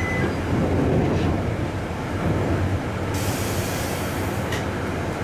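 DMH17 diesel engine of a Kanto Railway KiHa 310 railcar running with a steady low hum, heard from inside the car. About three seconds in, a hiss of compressed air lasts about a second and a half.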